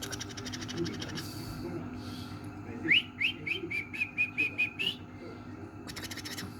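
Pet parrot giving a rapid run of short whistled chirps, about four a second, the first few sweeping upward and the rest at a steady pitch, lasting about two seconds from around three seconds in.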